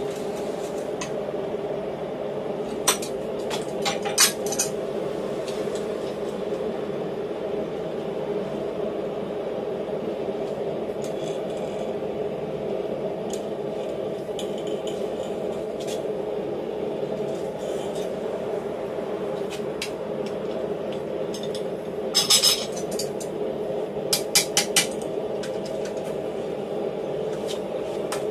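Hot steel bar clamped in a bench vise being twisted with blacksmith's tongs: a few sharp metal clinks and scrapes of tongs against the steel and vise, two about three and four seconds in and a cluster near the end, over a steady background drone.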